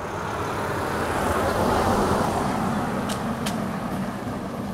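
A car driving past on the road nearby: its tyre and engine noise swells to a peak about two seconds in, then fades as it drives away.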